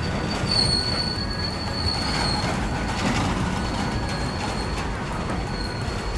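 Freight train of tank wagons rolling past close by: a steady rumble of wheels on the rails, with a thin, high-pitched squeal held throughout.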